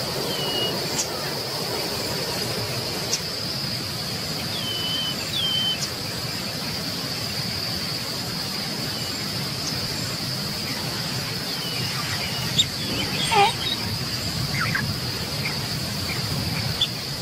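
Outdoor grassland ambience: a steady, high insect drone with brief falling bird chirps scattered through it. About two-thirds of the way in, a louder call sweeps downward in pitch.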